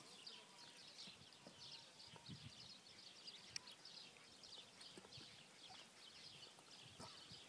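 Near silence: faint, dense high-pitched chirping, many small calls overlapping without pause, with one soft click about three and a half seconds in.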